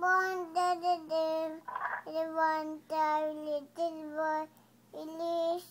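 A young girl singing a nursery rhyme in short, evenly held notes, pausing to take a breath between phrases.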